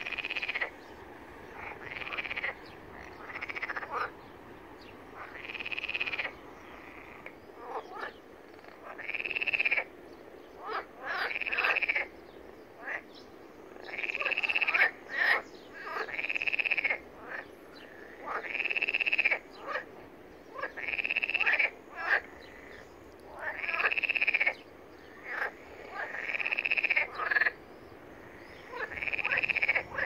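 Green frogs croaking in a mating chorus: repeated calls, each about a second long, every second or two, some overlapping.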